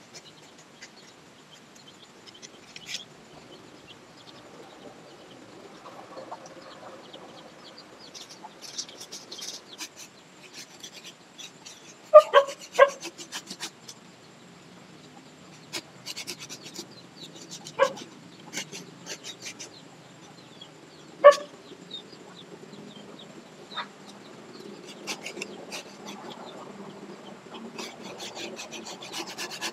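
Hand pruning saw rasping on a lychee branch in short runs of strokes, turning into a steady run of strokes near the end. A few loud, sharp clicks come in between.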